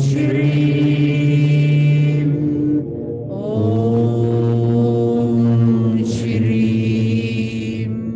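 A woman chanting a mantra in long, held tones, pausing for a breath about three seconds in.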